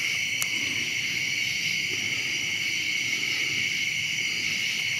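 Steady, continuous chorus of crickets, with one faint click about half a second in.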